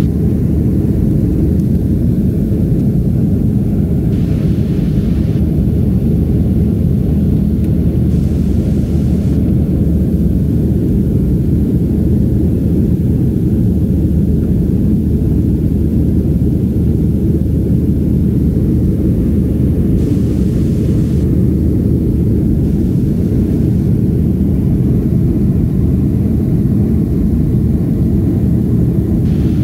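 Cabin noise of a Boeing 737-500 in flight: a steady deep rumble of its CFM56 turbofan engines and the airflow over the fuselage, heard from a seat by the wing, with a faint steady hum.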